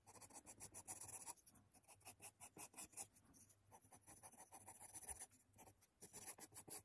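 Faint scratching of a graphite pencil on paper, drawing light curved strokes in quick repeated runs, pausing briefly twice.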